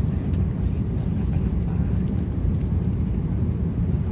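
Steady low drone of an airliner cabin in flight: engine and airflow noise heard from a passenger seat.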